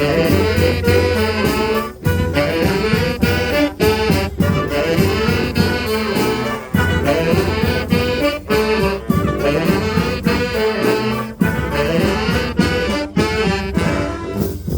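Street brass band playing live: horns over a steady beat, with brief breaks in the phrase about two and about seven seconds in.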